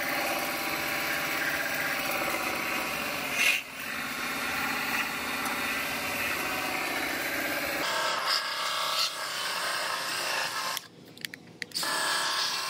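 Finger belt sander running steadily against sheet-metal flanges, sanding the panel edge down to bare steel to prepare it for spot welding. The sound changes abruptly about eight seconds in and cuts out briefly near the end.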